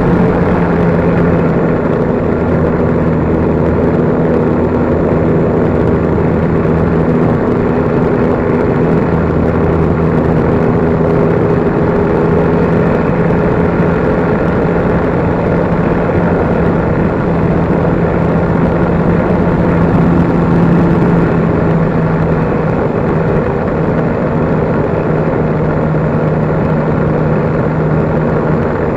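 RC Blazer trainer plane's motor and propeller humming steadily in flight, heard from the action camera mounted on the plane, with rushing air noise. The pitch wavers slightly but never stops.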